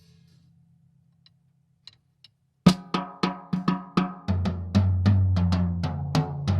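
Tama Starclassic Walnut/Birch drum kit being played: after a couple of seconds of near quiet, a hard first hit about two and a half seconds in starts a steady run of drum strokes with ringing drum tones, and a deep sustained low drum tone joins about a second and a half later.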